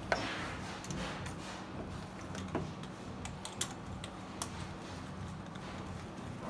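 Scattered light metallic clicks and taps, about one a second, as a compression-gauge hose and its fitting are handled and unscrewed at the cylinder head of a diesel engine on a stand.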